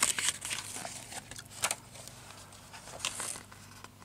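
Pages of a large hardback book being handled and turned: irregular paper rustles and scrapes, with a few sharper ones near the start, in the middle and near the end, over a faint low hum.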